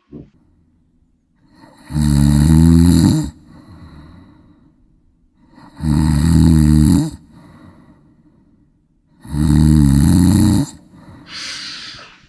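A person snoring loudly: three long snores of over a second each, coming about every four seconds, with softer breaths out between them.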